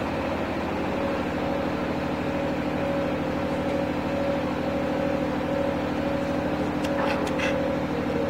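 Steady machine hum with a fast low pulse, as of a motor running. A few faint clicks about seven seconds in.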